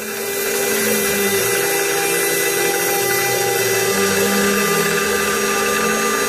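CNC router spindle running with its end mill cutting a 1/8-inch carbon fiber plate under a stream of coolant: a steady high whine over cutting noise. A lower tone drops out about a second in and returns about four seconds in.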